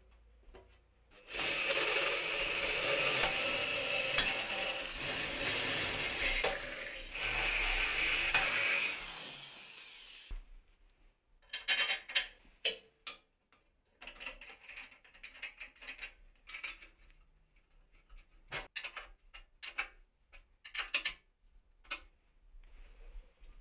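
A tool tightening fasteners on a steel welding cart frame runs steadily for about eight seconds, with a short break near the middle. Then come scattered light clicks and metal taps as parts are handled and fitted.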